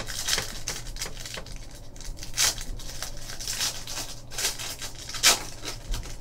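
A foil-lined trading-card pack being torn open by hand, the wrapper crinkling in irregular bursts. The loudest crinkle comes near the end.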